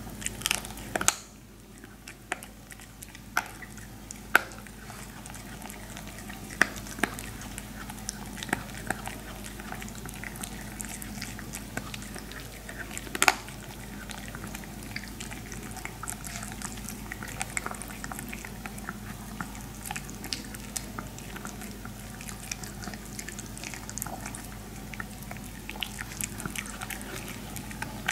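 A Maltese dog chewing a dried pig-ear slice: irregular gnawing clicks and crunches, with sharper cracks about half a second in, about a second in and again around 13 seconds in, over a faint steady hum.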